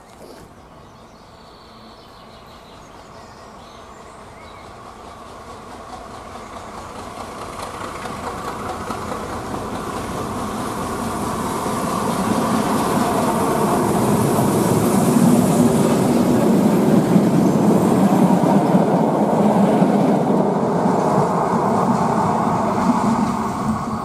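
Red-and-cream diesel railcar train approaching on a curving single track, its engine and wheels growing steadily louder, then running past close by at its loudest for the last third.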